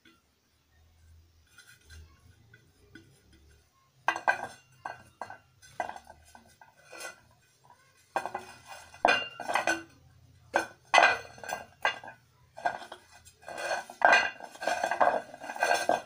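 Irregular clinks, knocks and scrapes of a metal washing-machine plate being handled and shifted on a hard floor. They start about four seconds in and grow busier from about eight seconds.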